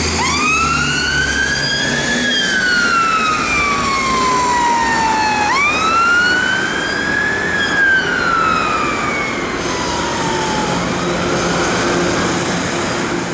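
Dennis Sabre fire engine's siren on wail: twice the pitch climbs for about two seconds and then falls more slowly, growing fainter as the engine moves off. The siren stops near the end, leaving the noise of road traffic.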